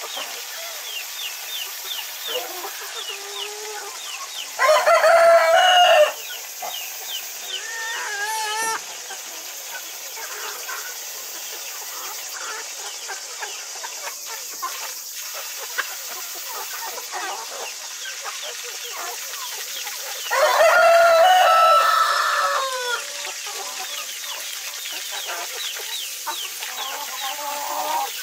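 Chicken flock clucking, with a rooster crowing twice, about five seconds in and again about twenty seconds in, the second crow the longer.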